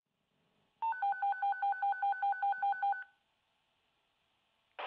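Emergency-dispatch radio alert: a rapid string of about a dozen identical electronic beeps, two steady pitches sounding together, about six a second for two seconds. A short burst of radio static follows near the end, opening the channel for the dispatcher.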